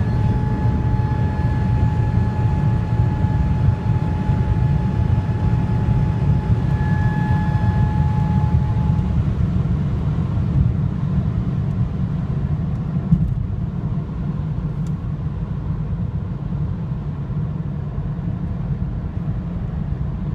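Steady road and wind rumble in the cabin of a BMW F30 320i at very high speed, with a steady high-pitched whine that fades out about nine seconds in. The whine is the unexplained noise the owner hears above 200 km/h.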